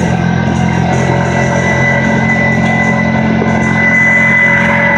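Rock music with guitar playing, with the side-by-side's engine running steadily underneath.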